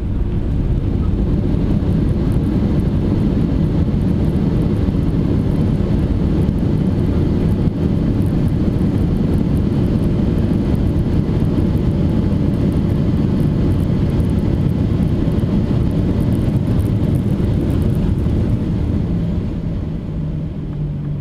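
Boeing 737-800's CFM56 jet engines roaring loudly in reverse thrust on the landing rollout. The roar swells at the start, holds steady, and dies away near the end as the engines spool down, leaving a steadier hum.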